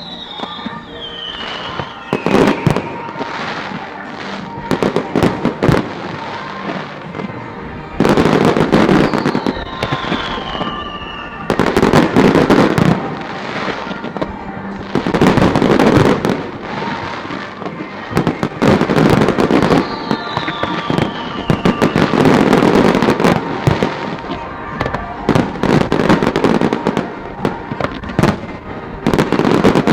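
Fireworks display: repeated bangs and loud crackling barrages from aerial shells, with a few whistles that fall in pitch, over music in the background.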